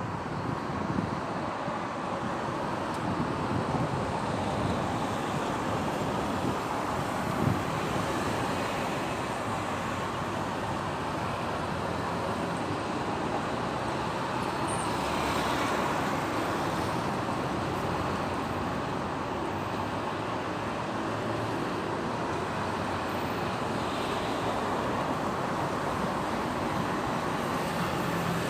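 Steady city road traffic: a continuous mixed noise of many vehicles' engines and tyres passing, with no single vehicle standing out.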